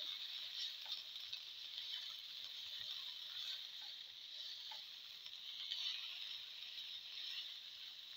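Tomato slices, garlic and cumin seeds frying in oil in a pan, a steady high sizzle, with a spatula stirring and scraping against the pan in small clicks.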